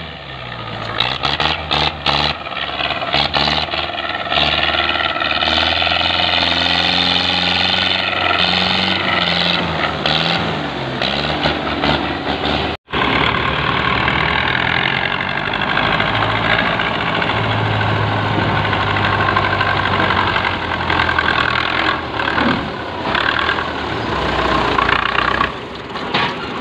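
Belarus tractor's diesel engine running under load, hauling a heavily loaded sugarcane trolley; its pitch dips and rises in the first half, then it runs more steadily after a brief dropout about halfway through.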